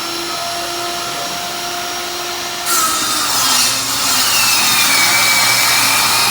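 Electric saw running with a steady whine, then its blade cutting into wood about two and a half seconds in, turning louder and hissier.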